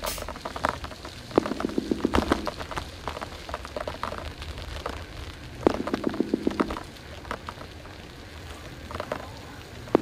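Mountain bike rattling and clicking as it rolls over a rough concrete lane, with a few short runs of rapid, even ticking.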